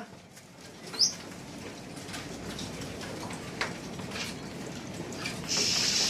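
Caged birds in a bird shop: a short rising chirp about a second in and a few faint chirps or clicks, over a steady background of birds. A brief high hiss comes near the end.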